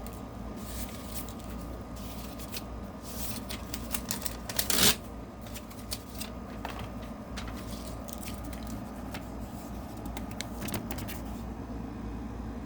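Sheet of paper rustling and being sliced by a thin-bladed folding knife, with scattered small handling clicks. The loudest moment is a brief slicing rasp about five seconds in.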